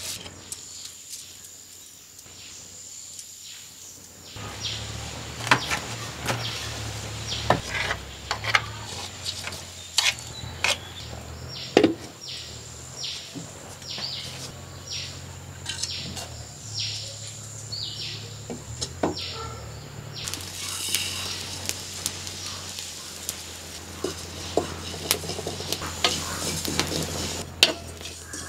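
Kitchen handling sounds: scattered knocks and clinks of clay pots and utensils over a steady low hum, with a run of quick, evenly repeated high chirps through the middle.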